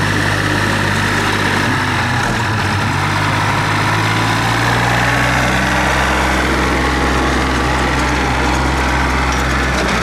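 Tractor engine running steadily at low revs.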